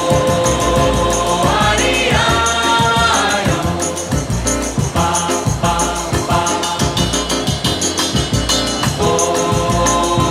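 Background music: voices singing over a busy, steady percussion beat.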